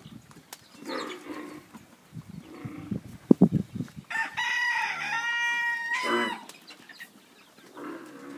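A rooster crows once, a single crow of about two seconds. A couple of seconds before it, a few short low thuds are heard.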